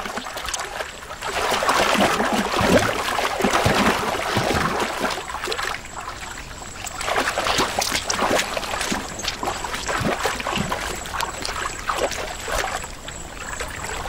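Water splashing and sloshing as crocodiles thrash and roll, tearing pieces off a carcass, in uneven spells with a brief lull about halfway through.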